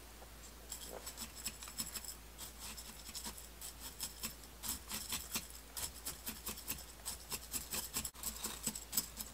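Coarse, gravelly potting soil being poked with a thin metal rod and worked in around a spider plant's roots: a dense run of irregular gritty clicks and scratches that starts about a second in.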